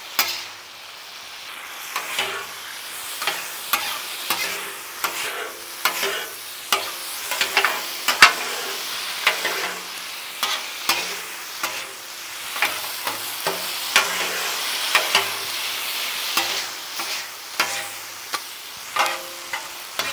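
Sauce-coated chicken and vegetables sizzling on a hot Blackstone flat-top griddle. Metal spatulas scrape and clack against the steel top again and again as the food is tossed. The sauce poured onto the hot surface is what sizzles, and it draws the griddle's temperature down.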